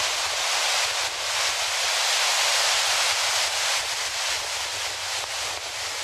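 Fast mountain stream rushing over boulders in white-water rapids: a steady, full hiss with a low rumble underneath.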